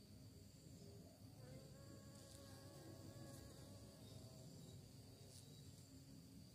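A bee buzzing faintly as it flies past among garden flowers: a steady hum that starts about a second and a half in and fades after about three seconds. Steady high-pitched insect chirring runs underneath.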